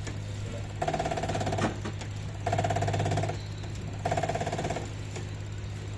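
A power tool run in short bursts, each about a second long with a fast pulsing buzz, over a steady low hum. There are three bursts, then a fourth near the end.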